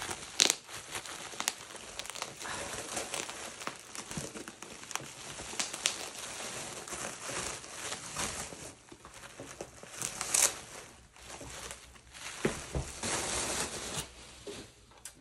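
Plastic bubble wrap being pulled off and crumpled around cardboard boxes: continuous crinkling with sharp crackles, the loudest crack about half a second in, dying away near the end.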